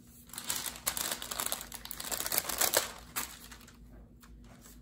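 Sticker sheets crinkling as a planner sticker is pulled off its backing: a dense crackle for about three seconds, then fading to a few soft ticks.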